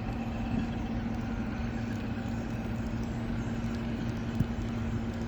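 A vehicle engine idling with a steady low hum and rumble. There is one short knock about four seconds in.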